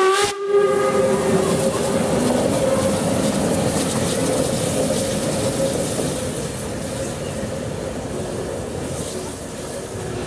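DR class 52.80 steam locomotive sounding its steam whistle in one long held note that fades out after about six seconds, over the steady hiss and rumble of the engine running.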